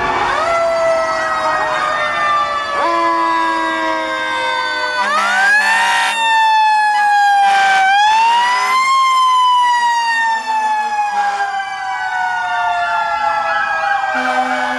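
Several fire engine sirens sounding at once, their overlapping wails rising and falling. One climbs sharply about five seconds in and again near eight seconds, then winds slowly down.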